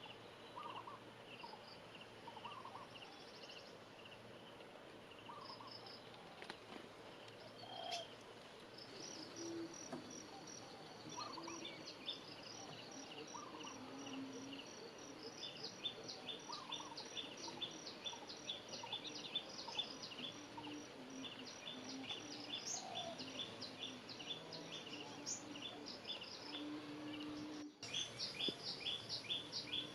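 Small birds chirping in quick, high-pitched series, sparse at first and then busy through the second half, over a faint steady insect hum.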